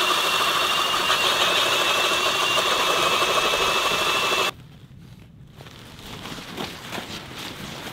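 Power ice auger drilling into lake ice, its motor running with a steady high-pitched whine that stops abruptly about four and a half seconds in. Faint scuffs and clicks follow.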